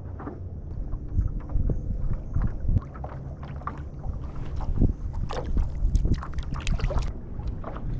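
Water splashing and knocking around a stand-up paddle board as it is paddled and shifted, with many short irregular knocks, busiest in the middle to later part, over a low wind rumble on the microphone.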